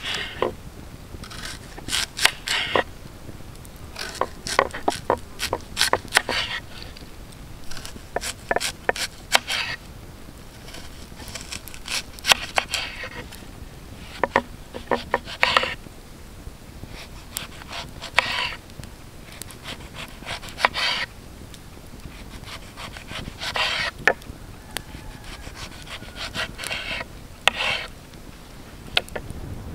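Knife cutting through food on a wooden cutting board, slicing a lemon by the end: short runs of crisp cuts and taps of the blade on the board, with pauses between.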